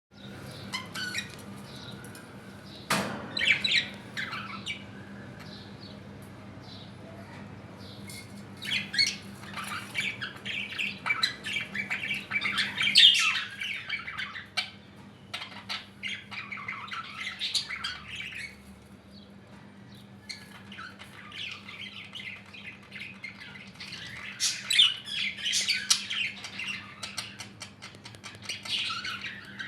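Small pet parrots squawking and chirping in irregular bursts, thinning out briefly past the middle, over a steady low hum. A sharp knock comes about three seconds in.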